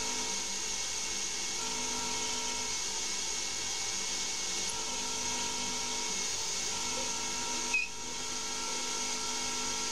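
CNC lathe spindle running steadily at 3000 rpm with a steady whine over a hiss, while a twist drill feeds into a 2011 aluminium bar. A single sharp click near the end.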